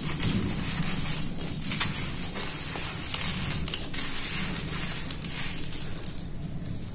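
Dry sand-cement chunks coated in red dirt being crumbled and crushed between the fingers: a continuous gritty crunching crackle, with a few sharper snaps as pieces break apart.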